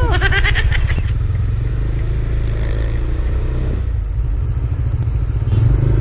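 Kawasaki Dominar 400's single-cylinder engine running at low speed, a steady low exhaust rumble. A brief, fast rattling clatter comes in the first second.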